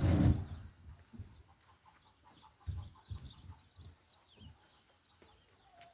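Chickens clucking and chirping. A loud knock comes right at the start, and a few dull thuds come about three seconds in.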